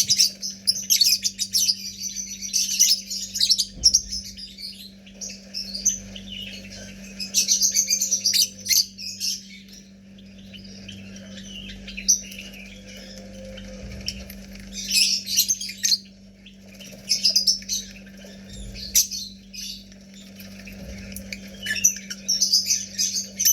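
Lovebirds chirping in bouts of rapid, shrill calls a few seconds long, with quieter gaps between them, over a steady low hum.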